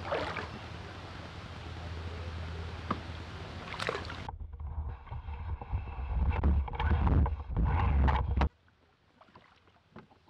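Wind buffeting the microphone outdoors: a heavy, gusty rumble that cuts off suddenly near the end.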